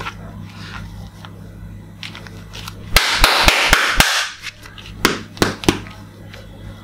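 Handling noise from a plastic toy axe turned and tapped in the hands. About three seconds in comes a second-long burst of rubbing and rustling with several sharp clicks, then three more separate clicks, over a steady low hum.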